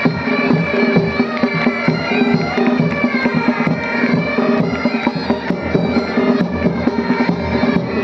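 Military pipe band playing: bagpipes sounding a melody over their steady drones, with drums beating underneath.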